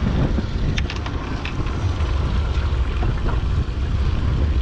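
Steady low rumble aboard a fishing boat, with wind buffeting the microphone, and a few light clicks and knocks over it.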